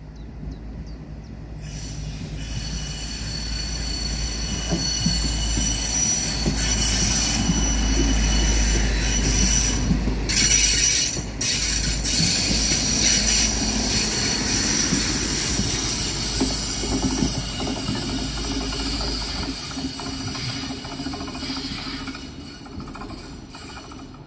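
A train rolling past, its wheels squealing in several steady high tones over a low rumble. It builds over the first several seconds and fades near the end.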